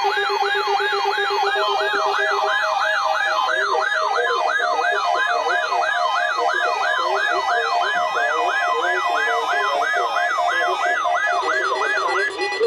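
Electronic siren-like emergency alert tone sweeping rapidly up and down, about two and a half sweeps a second, over steady held tones; it cuts off just before the end, where the voice announcing the weekly test begins.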